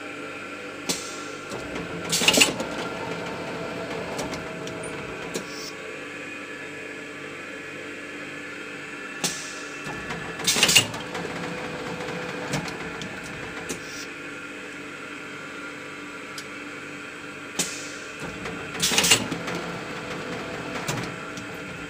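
Extrusion blow molding machine for plastic bottles running with a steady hum, cycling about every eight and a half seconds. Each cycle brings a hiss of air and then a louder blast of air with clunks from the mold clamp. Three cycles are heard.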